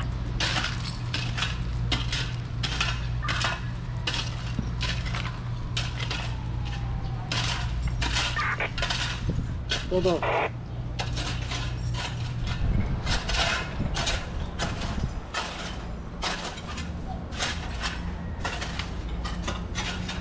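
Hand-tool work in stony soil: short scrapes and metallic clinks, irregular at about one or two a second, over a steady low hum.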